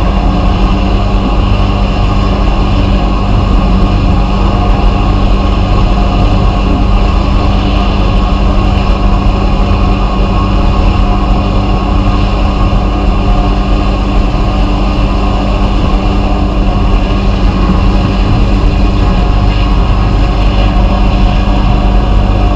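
A machine running steadily and loudly, a constant low hum with a hiss above it, unchanged throughout.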